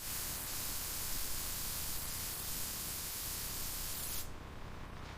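Paint spray gun hissing steadily as it sprays the body panels, cutting off about four seconds in.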